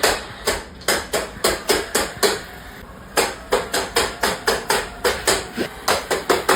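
A rapid series of sharp knocks or taps, about three to four a second, pausing briefly about halfway through.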